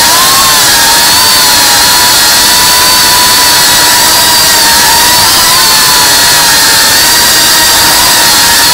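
An FPV tiny whoop drone's small motors and propellers whining steadily over a loud hiss, the pitch wavering slightly up and down as the throttle changes.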